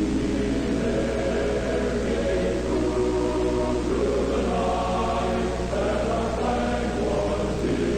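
Choir-like chanting music: held vocal chords that shift to new pitches every second or two, over a steady low drone.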